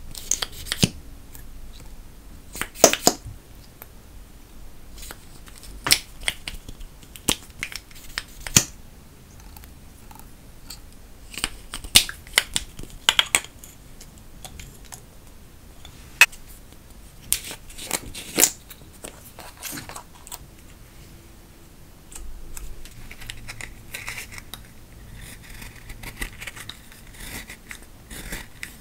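Sharp, scattered clicks and taps of plastic makeup tubes and caps being handled and opened. Near the end, a softer scratching as a plastic spatula scrapes pressed powder out of a compact.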